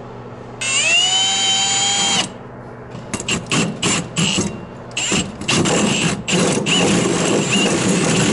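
Cordless drill with a hole saw cutting into wood overhead. The motor first spins up freely with a rising whine for about a second and a half and stops. Then come several short trigger bursts as the saw starts to bite, and from about five seconds in it runs steadily, cutting.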